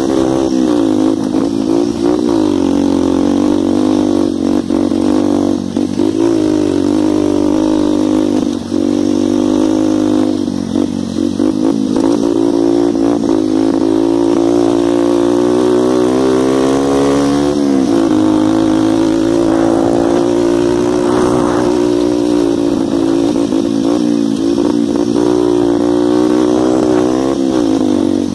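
125 cc dirt bike engine running hard at high revs, heard from the handlebars while riding. The pitch sags and climbs back several times with throttle changes, with a deeper drop and recovery about 18 seconds in.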